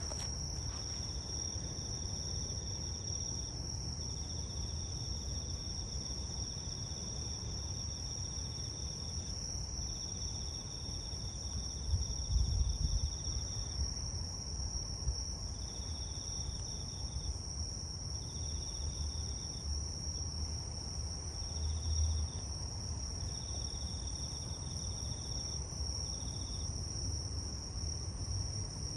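Night insects singing: one keeps up a steady high, unbroken trill, while another trills lower in bouts of one to three seconds, about eight times. A low rumble runs underneath, with a few louder bumps near the middle.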